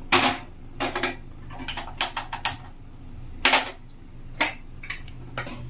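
Spoon knocking and clinking against a steel bowl as spice powder is measured in: a series of irregular sharp knocks, the loudest near the start and about three and a half seconds in.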